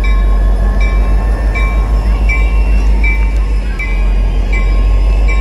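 NJ Transit F40PH-2CAT diesel locomotive running as it creeps along, its bell ringing steadily with a short ding about every three-quarters of a second over the low, steady rumble of the engine.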